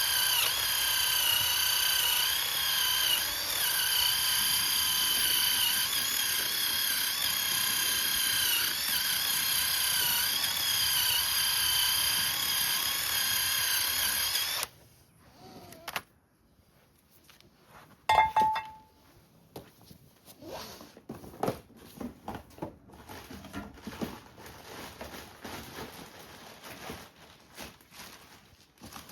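A handheld power drill runs steadily with a high whine for about fifteen seconds, then stops suddenly. Scattered clinks and knocks of metal parts being handled follow, with one sharp metallic clank that rings briefly.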